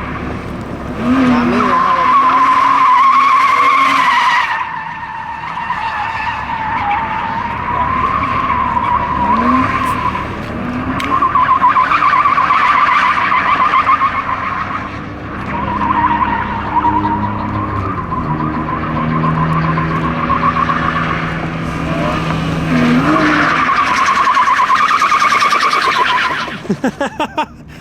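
A car drifting: its tyres squeal in long wavering stretches with short breaks, over an engine whose revs rise and fall. The squealing stops abruptly near the end.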